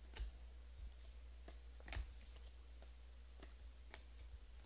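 Trading cards being thumbed through one by one in the hand: faint, irregular clicks and snaps of card stock, about one every half second, the loudest about two seconds in, over a steady low hum.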